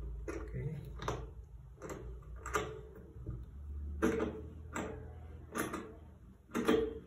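Metal desk clamp of an overhead phone and microphone bracket arm being screwed tight onto a table edge, the arm and clamp knocking and clicking about once a second as it is turned and handled.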